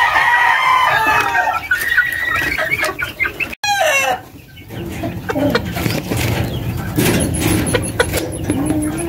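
Chickens clucking and squawking. About three and a half seconds in, a rooster's crow trails off in a falling note, followed by low clucking.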